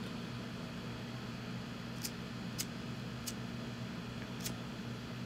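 A handheld lighter being flicked, four short sharp clicks spread over a few seconds, over a steady low hum.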